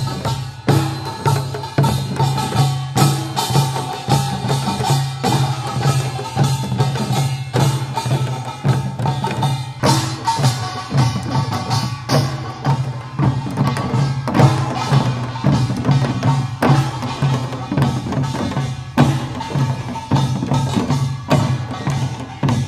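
Korean pungmul folk percussion played on the march: barrel drums and metal gongs beaten together in a steady, dense rhythm.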